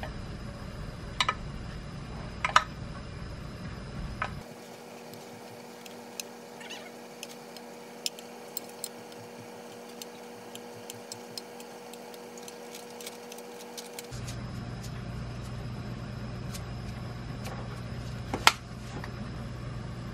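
Light clicks and taps of a serving utensil against ceramic dishes and a pan as beef pieces are plated onto curry and rice, over a steady room hum; a few sharper clinks stand out, one about a second in, one a little later and one near the end.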